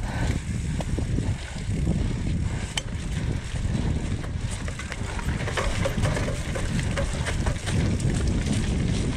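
Mountain bike riding down a rough dirt downhill trail: tyres rolling over dirt and ruts with a constant low rumble and scattered clicks and rattles from the bike.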